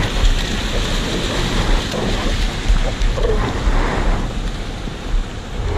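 Surf washing up a sandy beach, with wind buffeting the microphone in a steady low rumble.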